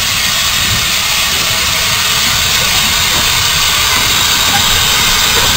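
Narrow-gauge saddle-tank steam locomotive 'Palmerston' running toward the listener with a steady hiss of steam, growing slowly louder as it comes closer.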